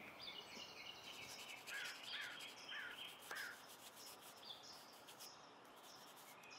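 Quiet outdoor ambience with a bird giving a run of short, falling calls, four or five about half a second apart in the first half. Faint scratching strokes of a pencil on paper come and go.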